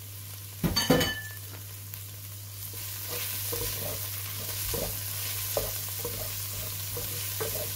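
Onion, garlic and fresh spring onions sizzling in oil in a stainless steel pot, with a wooden spoon stirring and scraping the pot bottom in repeated strokes. About a second in there is a sharp clink that rings briefly, and the sizzle grows louder once the stirring starts about three seconds in.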